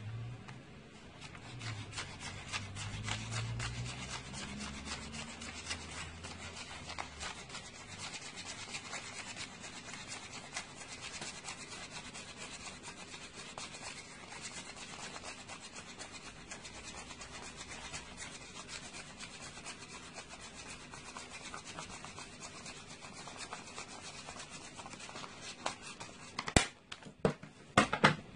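Stack of paper banknotes being counted by hand: a fast, steady papery riffle as note after note flicks past the fingers. In the last two seconds, a few loud knocks as the stack is tapped square on the wooden table.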